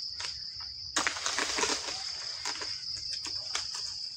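Steady high insect chirring. From about a second in it is joined by a run of rustles and short scraping strokes as a long-pole harvesting sickle (egrek) is worked against an oil palm's fruit bunch and fronds.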